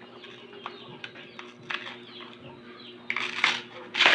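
Eating noises: small mouth clicks and smacks, with louder noisy bursts of chewing or slurping near the end, over a steady low hum.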